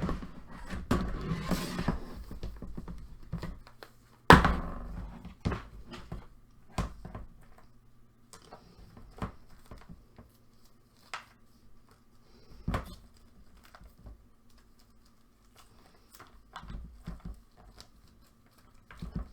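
Small objects and packaging being handled: rustling for the first few seconds, a loud knock about four seconds in, then scattered light clicks and taps.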